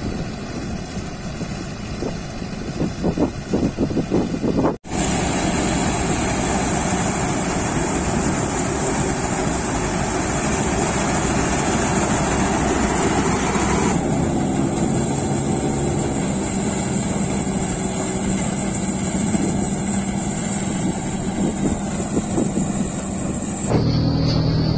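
Mahindra Balkar tractor-mounted combine harvester running steadily under load while threshing rice, engine and threshing machinery together, with a steady high whine from about five seconds in until near the end. Wind buffets the microphone for the first few seconds, and the sound changes abruptly twice where the shots change.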